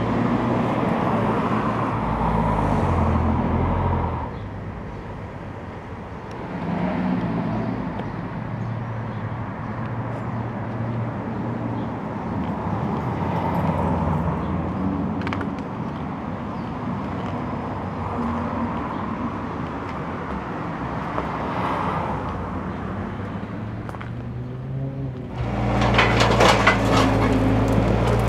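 Street traffic with cars passing, swelling and fading several times. About 25 seconds in, a skid-steer loader's engine starts running close by, with sharp knocks and clatter as it works among broken concrete paving slabs.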